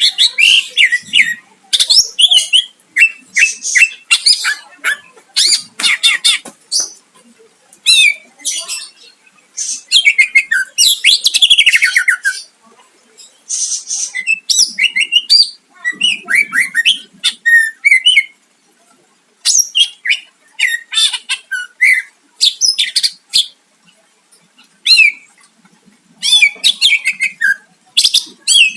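Green leafbird (cucak ijo) singing hard: loud, fast phrases of varied chirps, trills and sweeping whistled notes, broken by short pauses. This is the full, busy song kept to provoke a rival bird into answering.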